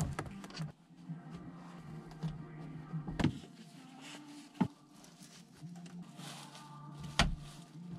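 Knocks and clatter of belongings being handled inside a campervan, with three sharper knocks about three, four and a half and seven seconds in, over a low steady hum.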